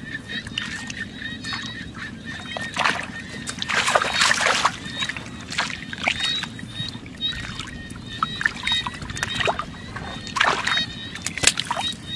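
Hands splashing and sloshing in shallow muddy water while groping for fish, in irregular bursts; the biggest splashes come about four seconds in and twice near the end. A faint steady high tone runs underneath.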